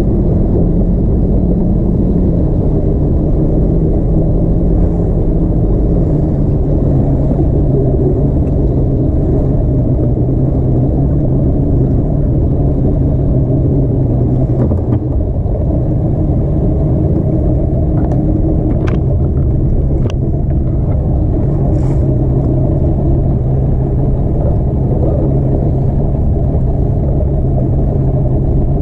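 Bass boat's outboard motor running at low speed, a steady engine rumble whose pitch drops slightly about six seconds in. A few short ticks come about two-thirds of the way through.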